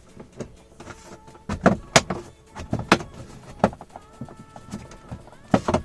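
Plastic dashboard trim of a Nissan Tiida being pried up with a plastic spatula: a run of sharp clicks and snaps from the trim's plastic clips, about five loud ones, with small scrapes and creaks between.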